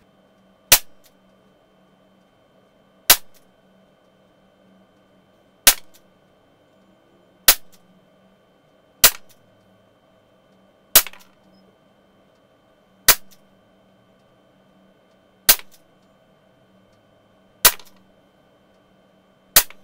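Umarex Smith & Wesson 586 CO2 pellet revolver with a 6-inch barrel firing ten single shots, one roughly every two seconds, each a sharp crack that dies away quickly.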